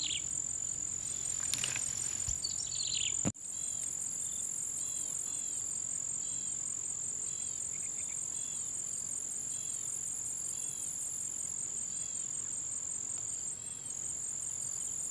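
Steady high-pitched drone of crickets or cicadas, with a bird repeating a short chirp about once a second after the first few seconds. A few rustles in the first three seconds, then a sudden break.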